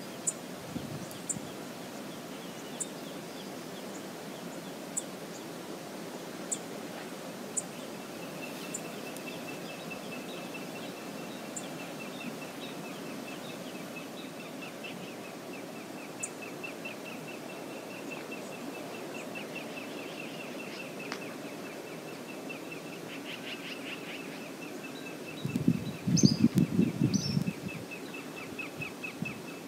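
Steady outdoor wash of lake waves and wind, with small birds calling over it: short high chips about once a second at first, then a long, rapid, even trill from about eight seconds in. Near the end a loud, low, rough rush lasts about two seconds, like wind buffeting the microphone.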